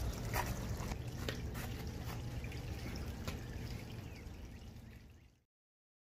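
Scattered crunches and rustles as a soil-filled fabric grow bag is lifted and carried over a gravel path, over a low steady rumble. The sound fades out to silence about five seconds in.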